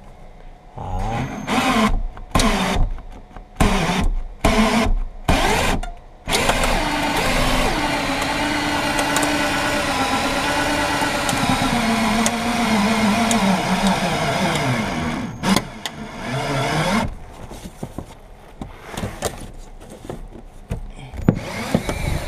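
Cordless drill-driven winder of a urethane cut-out wire system, pulling the cutting wire through the glass's urethane bead. It runs in short on-off bursts for the first six seconds, then runs steadily for about ten seconds, its motor pitch sagging under load and rising again near the end before it stops. Quieter clicks follow.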